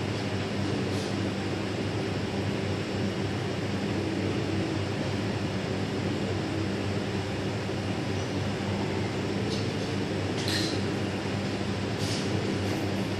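Steady electrical machine hum of commercial kitchen equipment, with a few short hisses about ten and twelve seconds in.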